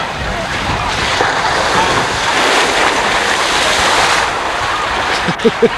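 Water rushing and splashing down a water slide's run-out lane: a steady hiss that swells for about three seconds and then eases, with wind rumbling on the microphone.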